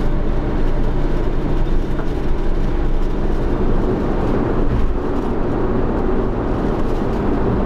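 Steady low rumble of a car driving.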